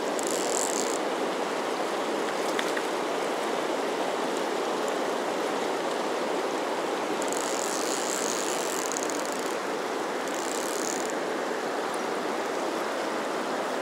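Fast river water rushing steadily past the wading angler. Three short high-pitched buzzing bursts come through it: one right at the start, a longer one about seven seconds in, and another a little before eleven seconds.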